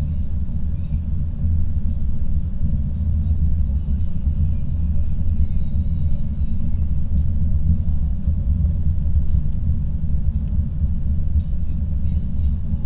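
Steady low rumble of a car driving at highway speed, heard from inside the cabin: tyre and engine road noise, even throughout with no change.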